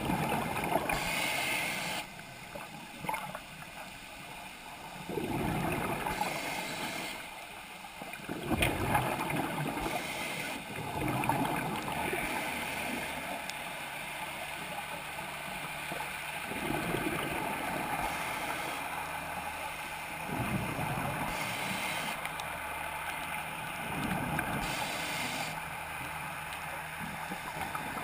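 Scuba diver breathing through a regulator underwater, heard through the camera's waterproof housing: a hiss on each inhale and a bubbling rush of exhaust bubbles on each exhale, in a slow cycle repeating every few seconds.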